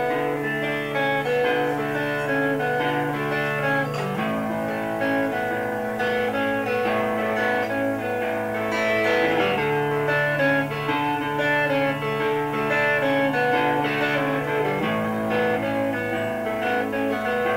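Solo electric guitar playing the instrumental intro of a home cassette demo: picked notes ringing over held chords, the chord changing about four seconds in and again near the end, with no singing yet.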